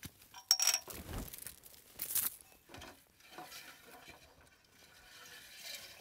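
Handling noise among undergrowth: a few sharp clinks and knocks, the loudest about half a second in and at about two seconds, with rustling in between.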